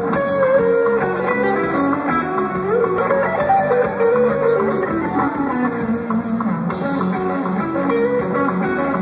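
Progressive metal band playing live: an electric guitar solo of quick, changing notes over the rest of the band.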